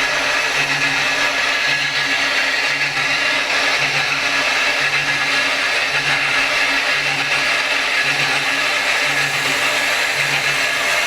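Steady, loud mechanical whirring with a low hum that swells and fades about once a second.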